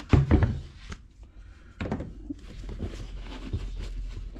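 Worn leather hiking boot being handled: a few quick thumps at the start and another a little under two seconds in, then rustling and scraping as a hand works inside the boot.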